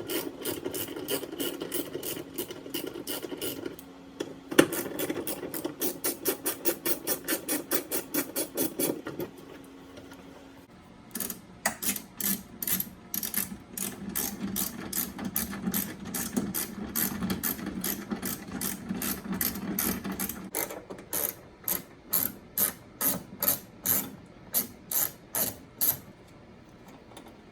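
Ratchet wrench clicking in fast runs as the 10 mm wiper-motor mounting nuts are spun off, with a short pause a little before the middle.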